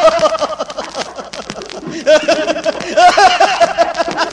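Old recording of a man's hearty laughter in repeated bursts, with tombak (Persian goblet drum) strokes behind it. The laughter is loudest at the start and again about two and three seconds in.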